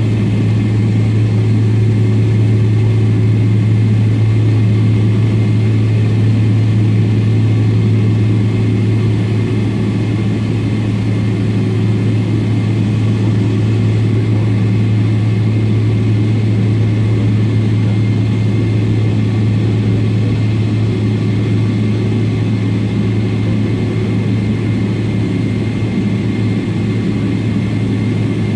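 Boeing 777-300ER's GE90-115B turbofans running at low, taxi thrust, heard from inside the cabin: a steady drone with a strong low hum that holds level throughout.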